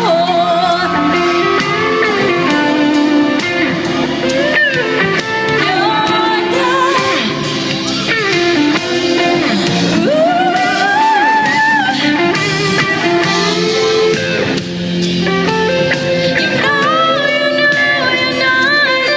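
Live pop ballad: a woman singing long, wavering vocal lines over guitar and a backing band.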